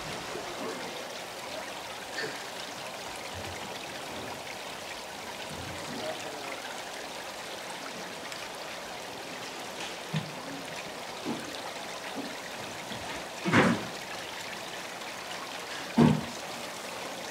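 Seawater running and splashing steadily into a live-seafood tank, with a few soft knocks and two louder thumps near the end as sea squirts are dropped into a plastic basket on the scale.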